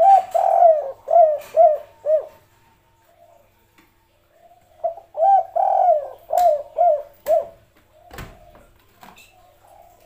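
Spotted dove cooing twice, each phrase a longer coo followed by three short coos (the 'kuk-3' pattern). A soft low bump comes near the end.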